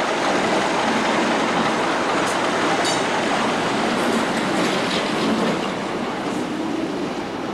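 Class 37 diesel-electric locomotive with its English Electric V12 engine passing close by, its engine and its wheels on the rails making a steady, fairly loud noise.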